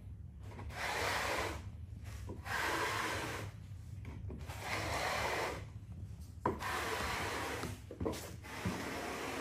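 Repeated rubbing or scraping strokes on wood, five long strokes of about a second each with short pauses between, and a couple of sharp knocks in the second half.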